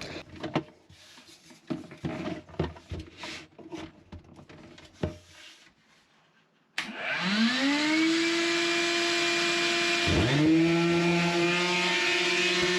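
Light clicks and knocks of handling, then about seven seconds in a motor starts and spins up to a steady whine. About three seconds later a second motor spins up alongside it: the shop vacuum and the electric sander joined to it by a hose.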